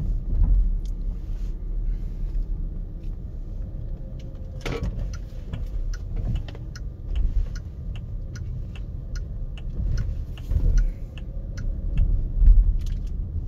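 Low tyre and road rumble inside an electric SUV's cabin at slow speed, with a turn-signal indicator ticking evenly at about two ticks a second from a few seconds in until near the end. One louder thump about a third of the way in.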